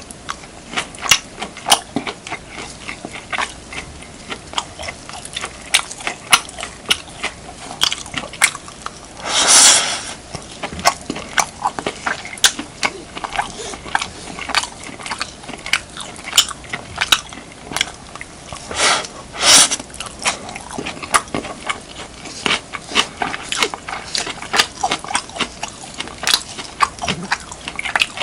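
Close-miked chewing of beef, kimchi and rice: a steady run of wet mouth clicks and small crunches. It is broken twice, about nine seconds apart, by a louder half-second rush of noise.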